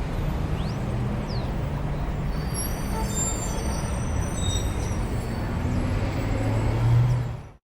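Street traffic: a heavy vehicle's engine running with a steady low rumble, with a few brief high thin tones about three seconds in. The rumble swells near the end, then cuts off abruptly.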